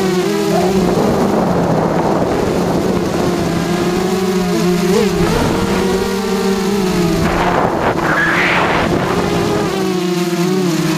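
Racing quadcopter's motors and propellers whining, heard from its onboard camera, the pitch bending up and down with throttle. About two-thirds of the way in there is a rougher burst whose pitch rises sharply before it settles back.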